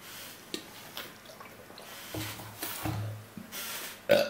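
A man drinking from a plastic bottle, with faint gulps and swallows, then a loud burp that breaks out near the end.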